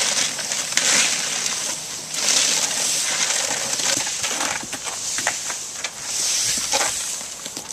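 Metal leaf rakes dragged through dry leaves and grass: repeated scraping, crunching strokes that swell and fade about every second, with a few sharper scratches.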